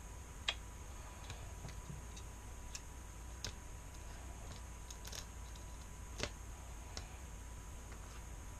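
Light, irregular clicks and taps of small metal ratchet parts being handled and fitted during reassembly, the sharpest about half a second in, over a faint steady hum.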